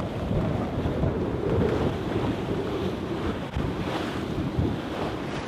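Wind buffeting the microphone over the rush of waves along the hull of a Najad 440 sailing yacht under sail in choppy water, a steady noise with no break.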